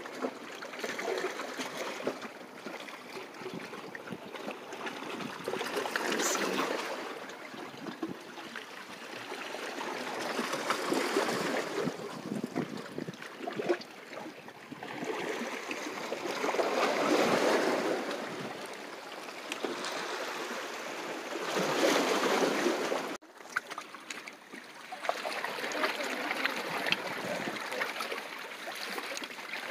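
Small waves of a calm sea lapping and washing against shore rocks, swelling and easing every few seconds, with a brief dropout about three-quarters of the way in.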